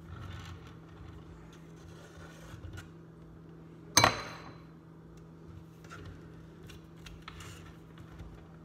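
A metal icing spatula strikes a dish once, about four seconds in: a sharp clink with a short ring, amid faint scraping and handling of icing tools.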